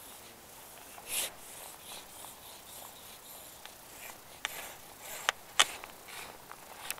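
Handling noise close to a chest-mounted microphone: a brief rustle of jacket fabric, then a run of sharp clicks and scrapes as the rod is lifted and a small fish is swung in and grabbed by hand.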